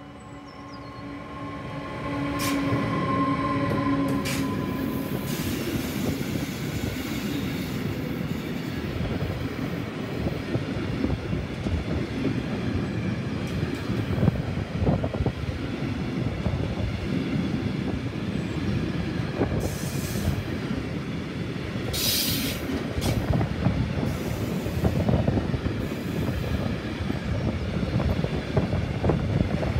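A DB Cargo class 189 electric locomotive passes close by with a brief humming tone, followed by a long train of chemical tank wagons rolling past with a steady rumble and rattle of wheels on the rails. Occasional clacks are heard, and a brief high-pitched wheel squeal comes about two-thirds of the way through.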